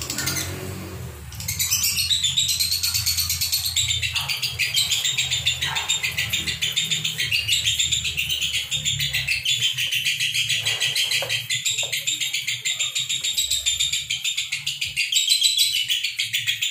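Caged lovebirds, Fischer's and masked, chirping rapidly and without pause: the nonstop 'konslet' chatter that keepers use to train other lovebirds. A short lull comes just after the start, then the chatter runs on unbroken.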